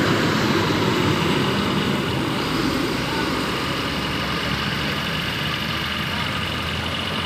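Bus engine running steadily close by, a dense rumbling noise with a thin steady whine above it that eases slightly over the few seconds.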